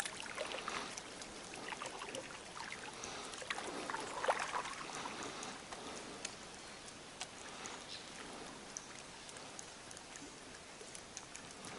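Faint ambience on calm water: soft lapping against a small boat, with small irregular clicks and knocks.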